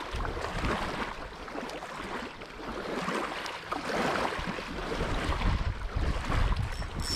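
Wind buffeting the microphone over small waves lapping at the lake shore: a steady, uneven rush with a gusty low rumble.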